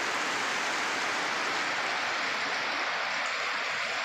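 Rain falling steadily: an even, unbroken hiss of water.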